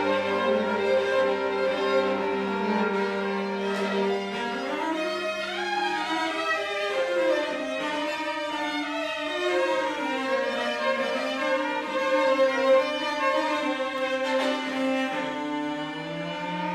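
Violin and cello duo, both bowed, playing sustained notes with sliding glides in pitch. A low cello note is held under the first three seconds.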